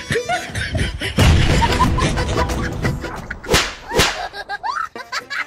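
Two sharp whip-like snaps of a rubber band striking, about half a second apart, after a loud rush of noise, over background music.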